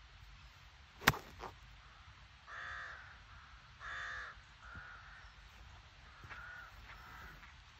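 One sharp, loud click of a golf iron striking the ball from turf about a second in, with a fainter click just after. Crows caw several times, the two loudest caws at about two and a half and four seconds in.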